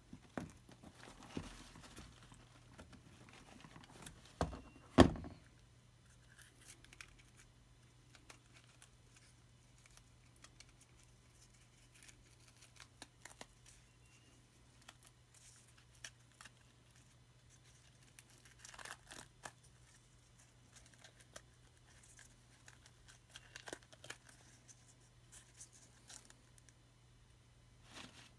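Pleated paper element of a used Tusk oil filter being cut, torn and crinkled by hand as it is pulled out of its casing and unfolded, in short scattered bursts. A single sharp knock about five seconds in is the loudest sound.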